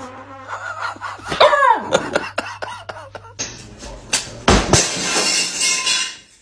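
A small dog whining briefly, falling in pitch. Then two sharp knocks and a loud rush of noise that cuts off near the end.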